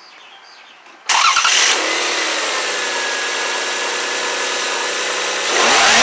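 Toyota 1MZ-FE 3.0-litre V6 cranking and catching about a second in, then settling into a steady idle. Near the end it is revved, the pitch rising.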